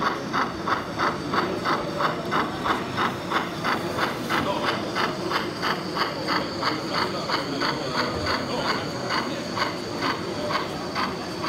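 Sound-equipped Gauge 1 model of a DB class 94 steam tank locomotive shunting slowly, its sound unit playing steady steam chuffs at about three a second over a hiss.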